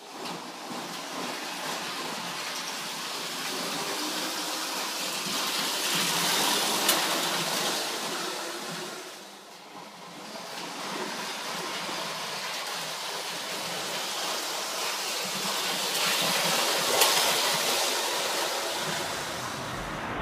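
Lionel prewar O gauge Union Pacific streamliner running on three-rail tinplate track: a steady rattling rumble of wheels and motor that swells twice as it passes close, with a sharp click at each peak and a brief dip between.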